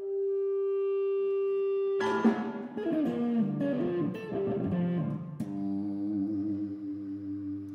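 A chamber ensemble playing contemporary concert music live: one note is held for about two seconds, then a sharp attack opens a busy passage of shifting, sliding pitches. A second sharp attack about five seconds in settles into sustained tones.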